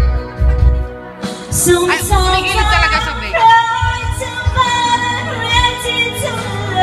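A woman singing karaoke into a handheld microphone over a backing track. Her amplified voice comes in about a second in.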